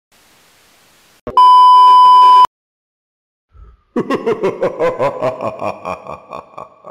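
Channel intro sound effects: a faint hiss of TV static, then a loud, steady test-tone beep lasting about a second that cuts off sharply. After a short pause, a rapid run of pitched, ringing notes plays as a logo music sting and fades out near the end.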